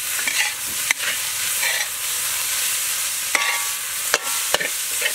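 A metal ladle stirring and scraping fried rice in a steel wok, against a steady high sizzle of frying. There are sharp clanks of ladle on wok about a second in and several more between three and four and a half seconds in, some ringing briefly.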